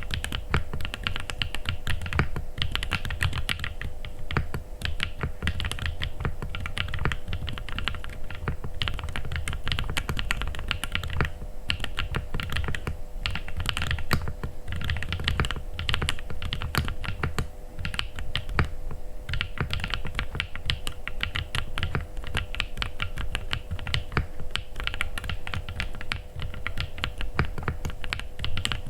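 Continuous fast typing on an AJAZZ AC067 mechanical keyboard with RK Misty Rain linear switches and Cherry-profile keycaps: a dense run of keystroke clacks with a few brief pauses.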